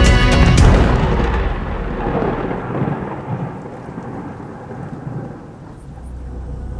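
Thunder crash with rain: loud at first, then rumbling away and fading over several seconds.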